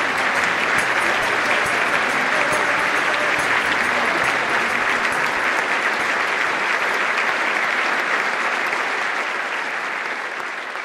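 Crowd applauding: dense, steady clapping that slowly begins to fade near the end.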